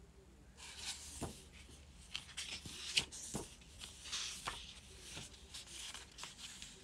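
Paper pages of a hardcover book being flipped by hand: a run of short rustling swishes starting just under a second in, with a few soft knocks as the book is handled.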